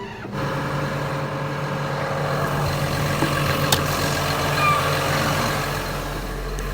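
Diesel engine of a John Deere 750L crawler dozer running steadily, heard from the microphone in the cab; it steps up in level a moment in and holds a steady hum.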